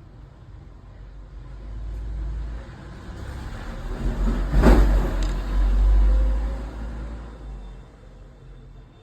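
A road vehicle passing close by: a low rumble that builds, peaks about halfway through, then fades away.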